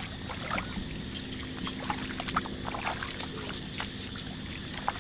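Hands sloshing and groping through shallow muddy paddy water, with scattered small splashes, drips and wet clicks.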